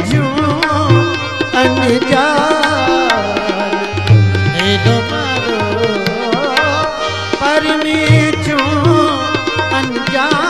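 Instrumental break in a devotional bhajan: a wavering melody line over a steady hand-drum rhythm.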